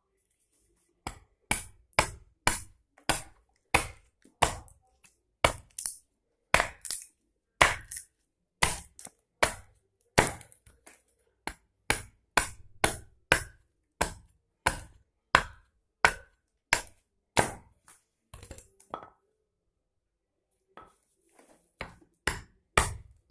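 A keser (Turkish hatchet-adze) chopping a boxwood spoon blank held upright on a log stump, roughing out its shape. Sharp strokes come steadily, about two a second, stop briefly near the end, then start again.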